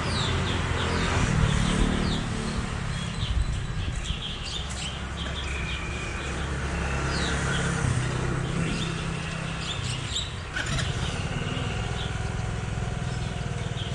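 A motor running with a steady low hum, with short birdlike chirps over it.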